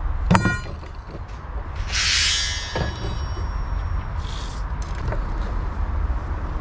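Steel rebar rods clanking against each other: one sharp metallic clank that rings briefly near the start, then a rasping scrape of rod on rod about two seconds in and a short hiss a little later.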